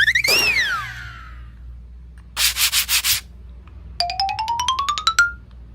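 A string of cartoon-style sound effects. First a whistle-like slide rises and falls, then a short rattle of about five pulses. Near the end comes a quick run of ticks climbing steadily in pitch.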